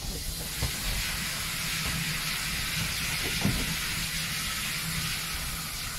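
Steam locomotive blowing off steam in a steady, unbroken hiss, over a low rumble.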